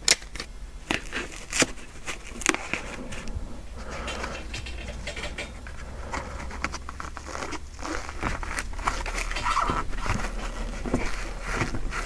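Hands fitting blocks of polyurethane foam and double-sided tape into a Royal Saturn typewriter's body shell: soft rustling and crinkling with scattered clicks and taps.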